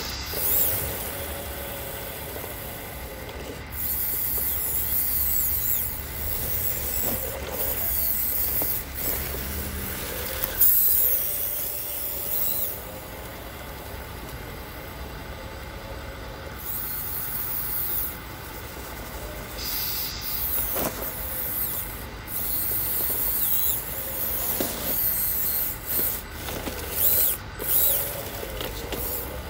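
Radio-controlled Cat D6T model bulldozer driving and pushing snow with its blade. Its mechanical running sound starts and stops in spurts of a few seconds, with a high hiss each time it moves.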